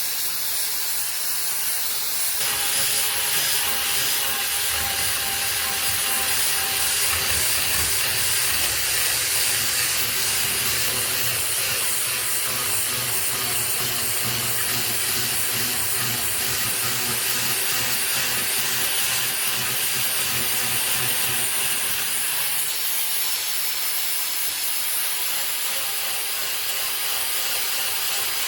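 Angle grinder with a flap disc sanding an oak slab: a steady motor whine under the hiss of the abrasive on the wood. The sound shifts a little about two seconds in and again near the end as the disc's contact with the wood changes.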